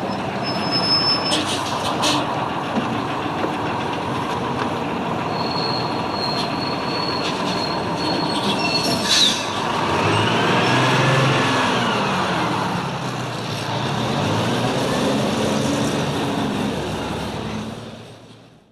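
Bus running, its engine rising and falling in pitch as it pulls away and changes gear, with a thin high whine and a few clicks in the first half. The sound fades out near the end.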